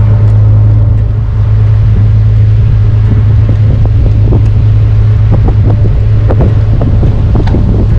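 Engine of a Dutch barge running steadily under way, a loud low hum, with short crackles over the second half.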